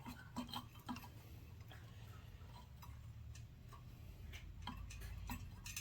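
Faint, scattered metallic clicks and ticks of hand tools working on a small engine while its carburetor is being unbolted, a few in the first second and a cluster near the end.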